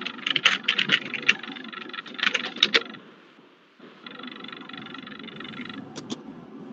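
Computer keyboard and mouse clicks over a video-call microphone: a run of quick clicks in the first three seconds, then two more clicks near the end, with a steady background hiss in between.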